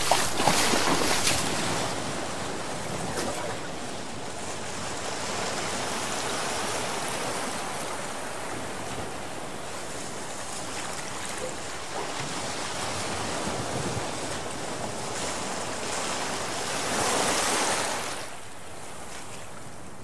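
Bathwater rushing in a steady stream, louder in the first second or two, swelling again about three-quarters of the way through, then falling to a softer trickle.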